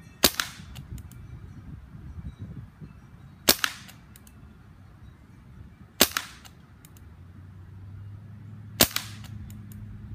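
Benjamin Wildfire PCP air rifle firing four shots, about two and a half to three seconds apart, each a sharp crack followed by a few faint ticks.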